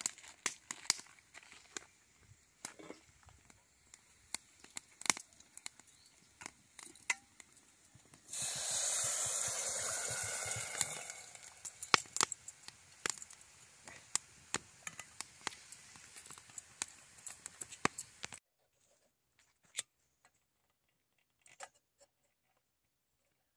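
Liquid poured into a hot cooking pot over a wood campfire, giving a loud sizzling hiss for about three seconds, about eight seconds in, among scattered sharp crackles from the fire. After about 18 seconds the sound drops to near silence with only a few faint clicks.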